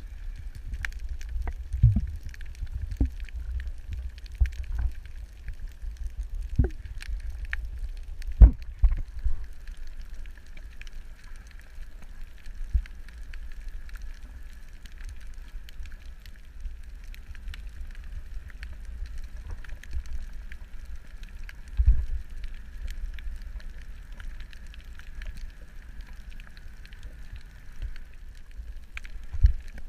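Underwater ambience on a reef dive: a steady low rumble with a faint hiss, scattered crackling clicks and a few dull thumps.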